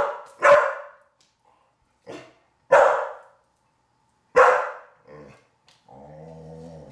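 A pit bull barking: three loud, sharp barks a second and a half to two seconds apart, with a few softer ones between.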